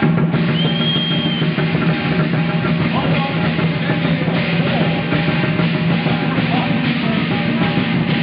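Lion dance percussion: a Chinese drum with clashing cymbals played continuously in a dense, loud din.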